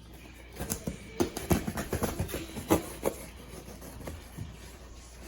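Cardboard shipping package being opened and handled: a quick run of sharp clicks, scrapes and knocks for the first few seconds, then quieter scattered rustling.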